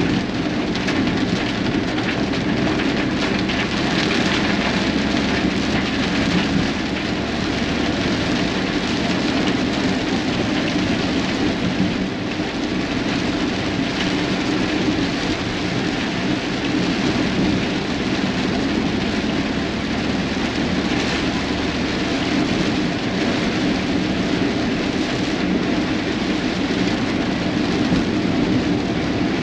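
Rain falling on a car's windshield and roof, heard from inside the cabin while driving on a wet road, over a steady low drone of engine and tyre noise.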